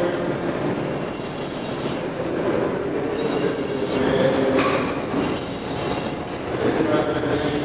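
Loud, steady machinery noise with wavering squealing tones running through it, and a sharp click about halfway.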